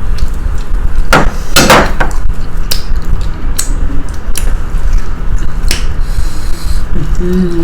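Utensils knocking and scraping on plates while food is served and mixed, a string of sharp knocks about a second apart over a steady low rumble.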